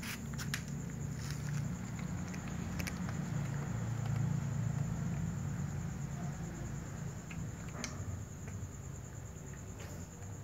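Cats eating dry kibble from a plastic container: scattered small clicks and crunches, a cluster of them at the start. Under them runs a steady high-pitched whine and a low hum.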